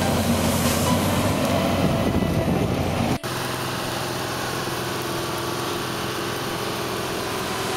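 Tractor engine running under load while the disc harrow it tows works through the stubble. About three seconds in the sound cuts off abruptly to a steadier, evenly pitched engine drone from a tractor hauling a slurry tanker.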